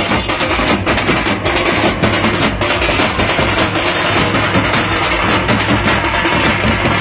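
A Teenmaar street drum band, snare and bass drums struck with sticks, playing a busy, driving beat.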